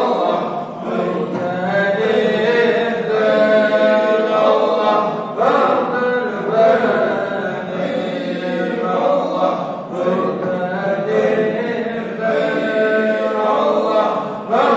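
A small group of men chanting a dhikr (zikir) together. The chant runs in repeated phrases, breaking about every four to five seconds.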